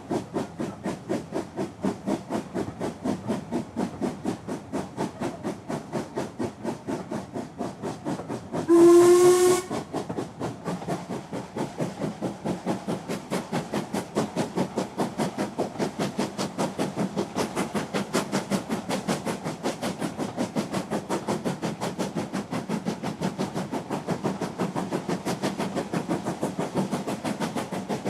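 Steam locomotive running at a steady pace, its exhaust chuffing in a quick, even rhythm with a hiss of steam. About nine seconds in, the whistle gives one short blast of about a second, the loudest sound here.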